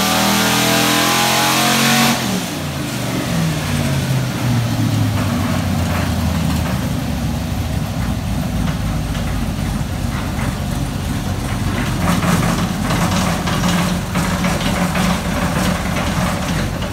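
6.0-litre LQ9 V8 with a VCM camshaft, running hard on an engine dyno. About two seconds in the revs drop and the note falls away over a few seconds, then it runs steadily at low revs. It stops near the end.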